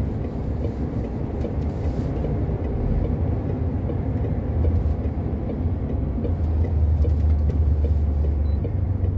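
Heavy truck's engine running with road noise: a steady low drone that grows heavier from about halfway through as the truck pulls out of a U-turn.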